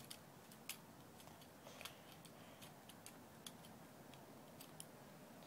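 Faint, irregular clicks of the plastic parts and joints of a Transformers Bumblebee toy being folded and snapped into place by hand, the sharpest one just under a second in.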